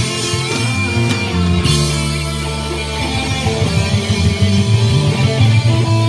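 Rock band playing, amplified: guitar over a heavy bass, with a bright crash-like wash coming in at about a second and a half.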